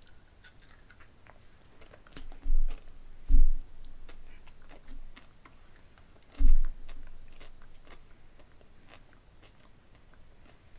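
Mouth sounds of someone chewing and crunching a candy-shelled candy corn M&M, with many small clicks. A few louder thuds stand out, the loudest about three and a half and six and a half seconds in.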